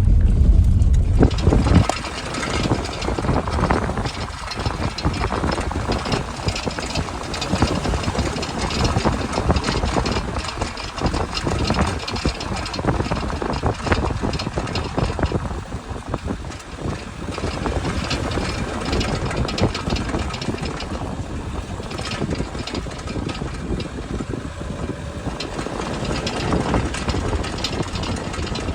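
Audi A6 driving over bumps in the road, with irregular knocking and rattling from the front-left wheel area over the rumble of the car. It is a front-left suspension noise that shows only on bumps, its cause unknown to the owner.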